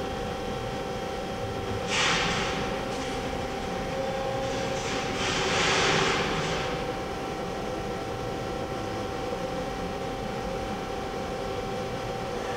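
CNC horizontal boring mill running, a steady hum broken by a sudden hiss about two seconds in and a longer, louder hiss around five to six seconds in.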